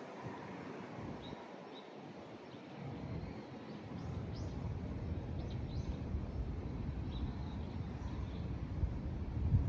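Outdoor ambience: a low, uneven rumble that grows louder about three seconds in, with a few faint, short, high bird chirps.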